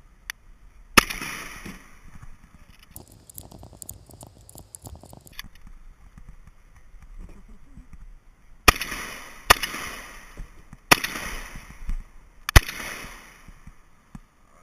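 Shotgun shots: one about a second in, then a run of quick clicks for two or three seconds, then four more shots in quick succession near the end, each with a short echoing tail.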